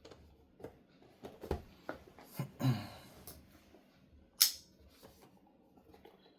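Hands rummaging through PC-part boxes and packaging: a run of light clicks and knocks with a short rustle, then one sharp crackle about four and a half seconds in.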